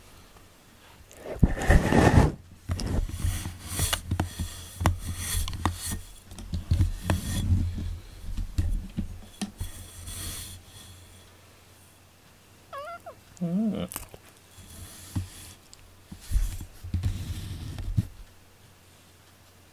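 Cloth rustling and bumping right against the microphone as a black cat brushes past and against the camera. A little past the middle comes one short, wavering cat call.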